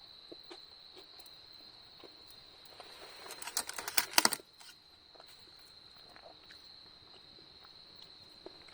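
Steady high-pitched insect drone, typical of crickets singing, with scattered faint clicks and a burst of loud clicking and clattering about three to four seconds in.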